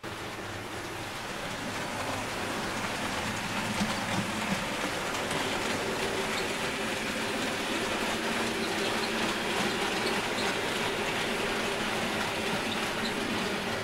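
A 00 gauge model train running along the layout's track: a steady rushing rumble of wheels on rail with faint scattered clicks, a little louder after about two seconds. A faint steady hum joins about five seconds in.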